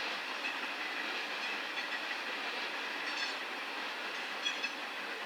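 CSX freight train rolling on the rails, a steady rumble of wheels and track noise with a couple of faint clicks.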